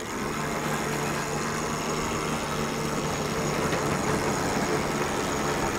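Electric Harken sheet winch running, a steady motor hum as it hauls in the code zero sheet to unfurl and power up the sail. The hum comes on just after the start and holds an even pitch.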